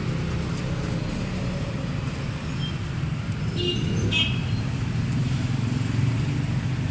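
A car engine running steadily at idle, a low even hum. Two brief high beeps come a little past halfway.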